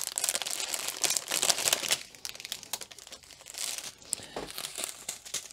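Small plastic bags of diamond-painting drills crinkling as they are handled and turned over. The crackling is dense for about the first two seconds, then thins to quieter scattered crackles.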